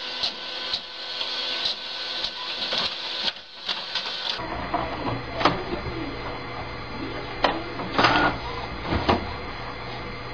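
Office printers running: repeated clicks over a hiss as the machine feeds paper, then, from about four seconds in, a different printer with a low hum and a few loud sharp clacks.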